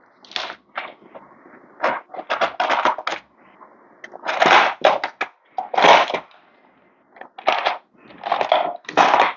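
Allen keys clattering and scraping as a set is rummaged through to find the right size, a run of irregular short clatters with brief pauses between them.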